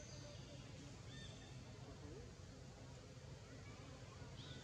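Faint outdoor forest ambience: a steady low hum with a few short, high chirps and whistles scattered through it, one near the start, one about a second in and one near the end.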